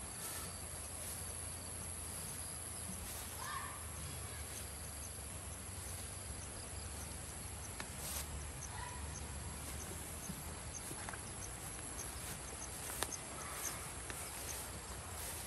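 Insects calling in a steady high whine, with a run of quick, regular chirps in the middle, over a low rumble.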